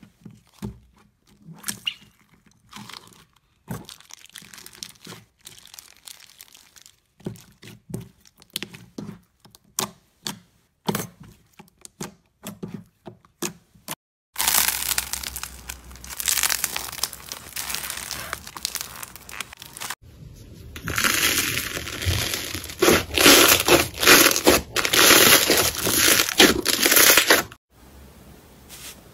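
Slime handled and pressed by hand: first a plastic bag of purple bead-filled slime crinkling and crackling in sparse clicks, then, from about halfway, a denser and louder crackling as other slimes are squeezed, growing louder still before stopping near the end.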